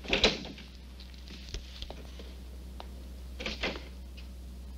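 A man exhaling cigarette smoke in one sharp blown-out breath about three and a half seconds in, after a short louder noise right at the start, over a steady low hum on the film soundtrack.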